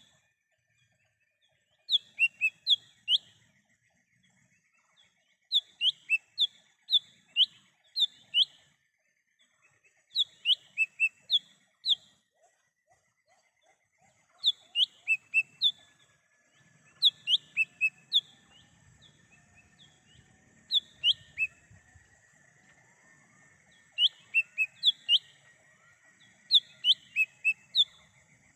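Lesser green leafbird (cucak hijau mini) calling in quick bursts of four to six sharp, high notes, each burst about a second long, repeating every two to three seconds. A faint steady high drone runs underneath.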